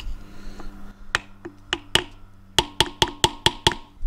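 Sharp metal-on-metal taps on a screwdriver set against a stuck part of a Tuff Torq K46 hydrostatic transaxle, driving it loose. A few spaced taps come first, then a quicker run of about six a second, each with a slight ring.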